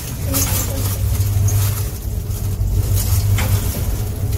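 Passenger lift running as the cab descends, heard from inside the cab: a steady low hum, with a couple of faint clicks.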